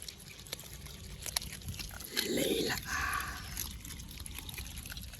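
An otter gives a short, low call about two seconds in, amid small clicks and drips of water.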